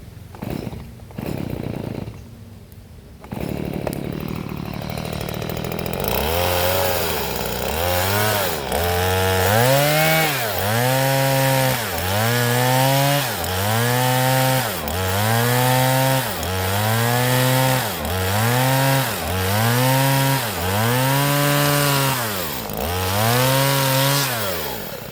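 Two-stroke chainsaw cutting coconut wood. After a few seconds of quieter running, the engine pitch rises and sags again and again, about every second and a half, as the chain bites into the wood; it cuts off sharply near the end.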